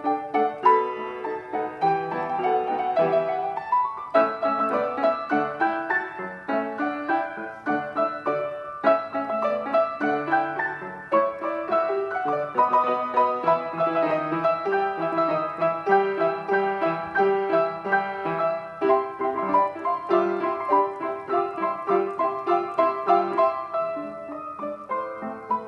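Piano duet on a grand piano: continuous music with chords and melodic lines, including a few quick rising runs.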